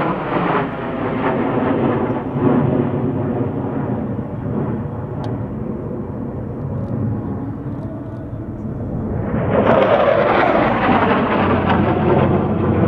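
Jet engine noise from a four-ship diamond formation of military fighter jets flying overhead. It is a loud, rough rumble that eases off through the middle and then swells louder again about nine seconds in.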